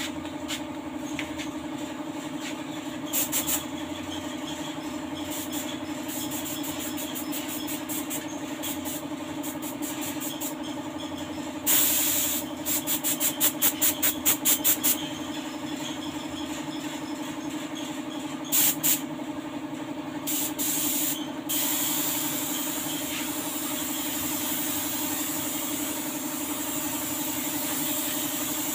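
Gravity-feed air spray gun hissing as paint is sprayed onto a car's body panels: short bursts and a quick run of trigger taps, then continuous spraying from about three-quarters of the way in. A steady machine hum runs underneath.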